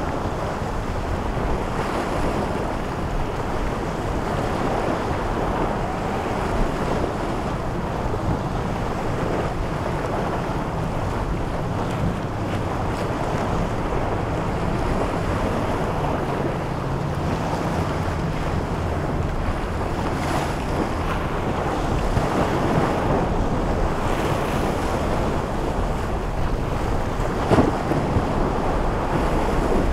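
Wind buffeting the microphone over surf and choppy inlet waves, with boat engines running beneath. There is one brief thump near the end.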